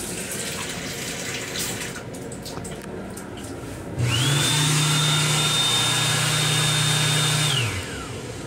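Water running from a faucet into a sink. About four seconds in, an automatic hand dryer in an M7 railcar restroom starts with a rising whine, blows steadily with a high whine and a low hum for about three and a half seconds, then winds down as the whine falls away.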